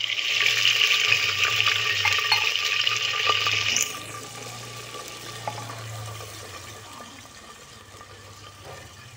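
Water poured into a hot handi of browned onions and spices in oil, hissing and sizzling loudly, then cutting back abruptly about four seconds in to a quieter sizzle.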